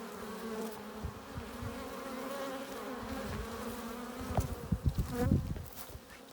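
Honeybees buzzing at a hive entrance: a steady hum of many bees, with single bees rising and falling in pitch as they fly past close by. A few short low thumps come between about four and five and a half seconds in, and the buzz quietens near the end.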